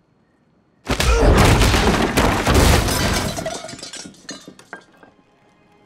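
Sudden loud crash of glass shattering about a second in, followed by shards and debris clinking and clattering as it dies away over the next few seconds.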